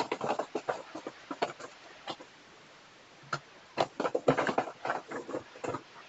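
Plastic packaging crinkling and rustling as it is handled and opened: irregular crackles, with a short lull about two seconds in before the crinkling picks up again.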